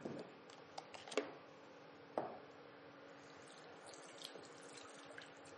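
Liquid poured from a vacuum flask into a bowl of rice: a faint, steady trickle through the second half, after a few light clicks and a knock.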